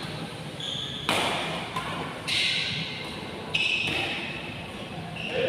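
Badminton rackets striking a shuttlecock in a doubles rally: three sharp hits a little over a second apart, echoing in a large hall.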